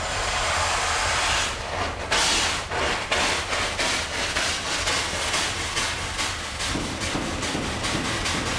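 A 119-year-old stationary steam engine running, its steam hissing. There is a louder gust of hiss about two seconds in, then a regular beat over a steady low rumble.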